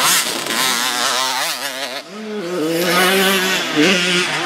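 Small dirt bike's engine revving hard as it passes close by, its pitch jumping rapidly up and down with the throttle. After a brief dip about two seconds in, an engine holds a steadier note.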